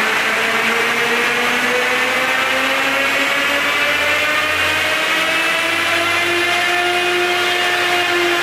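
Mercedes-Benz Actros 2646's V6 diesel engine and drivetrain pulling under full load against a chassis dynamometer's eddy-current brakes during a baseline power run, its pitch climbing steadily as the revs rise, levelling off about six seconds in and dipping slightly near the end.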